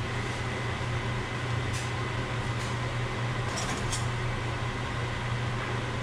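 Steady low fan hum in a kitchen, with a few soft clicks and scrapes of a metal spoon as cooked rice is spooned from a pot into a nonstick pan.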